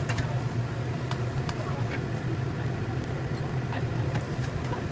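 Wooden spatula stirring prawns and basil in a wok, with scattered knocks of the spatula against the pan over a steady low hum. Near the end a glass lid is put on the wok.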